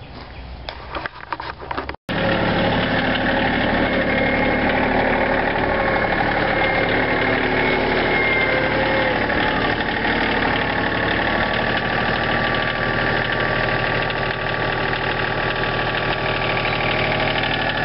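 Compact utility tractor engine running steadily while the tractor tows a truck on a chain. The engine starts after a brief stretch of clicks and handling noise about two seconds in.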